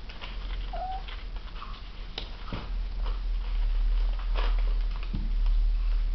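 Kittens tussling with their mother cat and a crinkly wrapper: scattered rustles and light taps, with one short kitten mew about a second in, over a steady low hum.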